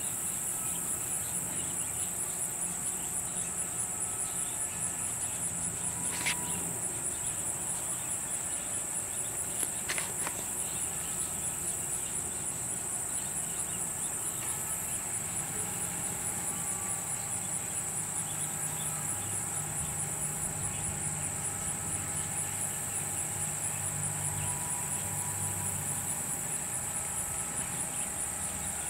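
A steady, high-pitched insect chorus, a fast pulsing trill. Two brief clicks come in the first third, and a low hum joins in the second half.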